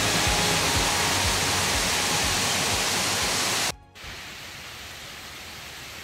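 Waterfall rushing over rock tiers into a pool, a loud steady hiss. About three and a half seconds in it cuts off abruptly and gives way to a much fainter outdoor hiss.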